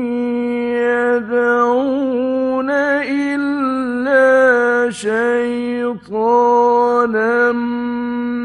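A male Quran reciter chanting in the Egyptian mujawwad style: one voice drawing out long held notes with wavering ornaments and steps in pitch, with a short break for breath about six seconds in.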